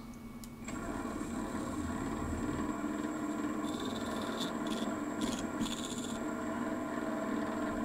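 A single brushless motor of a 5-inch FPV race quad spinning steadily at low throttle on a Betaflight motor test: a steady whine made of several even tones that starts under a second in.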